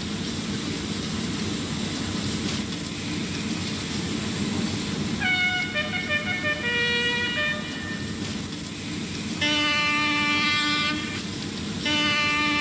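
A steady low rumble with horn-like pitched notes over it: a few short notes stepping up and down in pitch about halfway through, then two long notes held at one pitch near the end.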